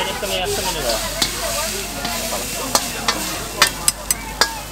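Fried noodles sizzling in a hot wok while a metal ladle stirs and scrapes them, with sharp clanks of the ladle against the wok, several of them in the second half as the noodles are pushed out onto a plate.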